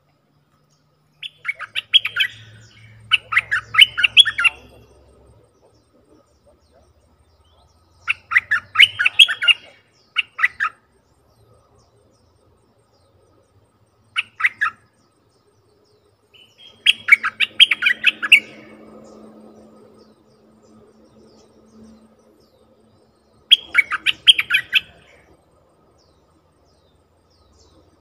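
Bulbul (merbah lekir) calling: about five short bouts of rapid, clipped chattering notes a few seconds apart. These are decoy calls for luring wild bulbuls.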